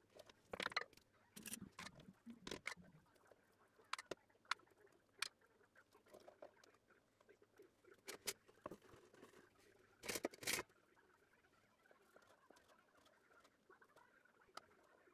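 Stainless steel lid set onto a frying pan of batter, then faint scattered clicks and taps from the covered pan, with a short cluster of louder taps about ten seconds in.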